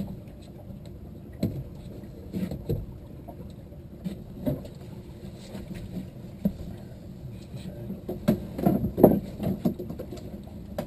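Small fishing boat on the water: a steady low rumble with scattered knocks and thumps on the hull and deck, coming more often in the last few seconds.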